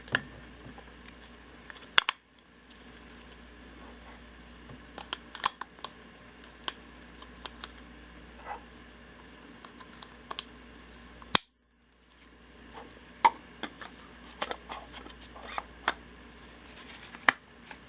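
Scattered small clicks and taps of AA batteries and plastic parts being handled as three batteries are loaded into a battery-operated pepper mill, with two sharper clicks, one about two seconds in and one about eleven seconds in.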